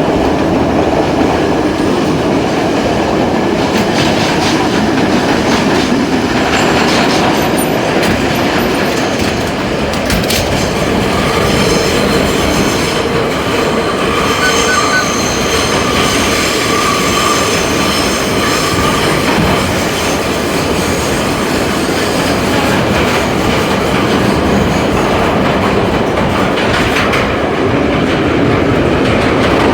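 R32 subway car running at speed through the tunnel: loud, steady wheel and rail noise with the clatter of rail joints. For several seconds in the middle a high steady tone rides over it.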